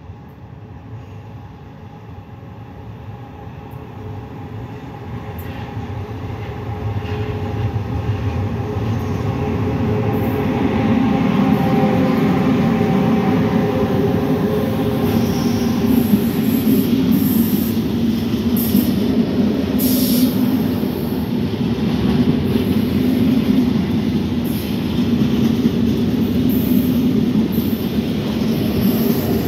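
Freight train passing: the rumble grows louder over the first ten seconds as it approaches, then the wagons roll by steadily and loudly, with brief high-pitched squeals now and then.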